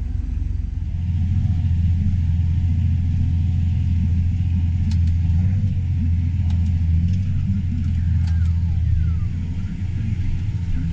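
Combine's engine running steadily with a deep drone. It grows louder about a second in and eases slightly near the end.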